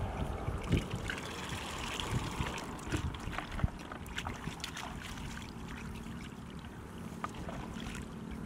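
Shallow water splashing and trickling, with scattered small knocks and splashes.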